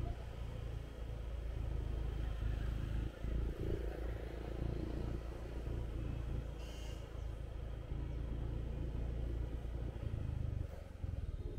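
Steady low rumble of a moving motorbike, its engine and the rushing air on the microphone, with light city street traffic around it.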